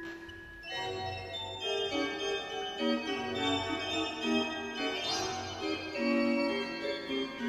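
Giroud pipe organ playing: after a brief dip, a lively rhythmic pattern of short, quickly changing notes over held chords.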